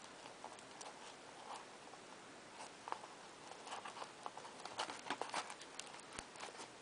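Faint handling sounds of thread being pulled and tied around a card-covered paper booklet: soft rustles and small scattered clicks of fingers on paper and card, bunching up about two-thirds of the way in.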